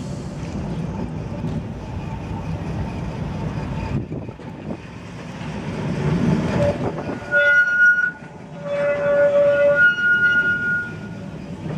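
Heritage electric tram running past on its rails with a steady low rumble, then from about seven seconds in two stretches of loud, high-pitched squealing as its wheels grind round the curved track.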